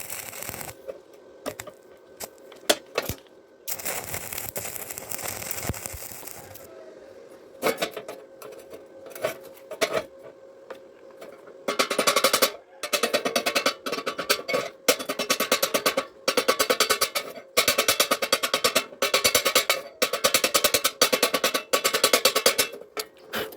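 Arc welding on steel reinforcing bar crackling and hissing for a couple of seconds. Scattered sharp metallic clicks follow, then repeated bursts of very rapid scraping strokes about once a second, like slag being scrubbed or chipped off the fresh weld.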